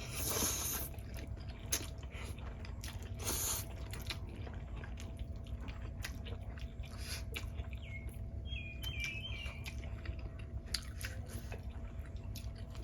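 Close-up eating sounds of Samyang Buldak spicy ramen: chewing with many small wet mouth clicks, and two short hissing slurps, one at the start and one about three seconds in.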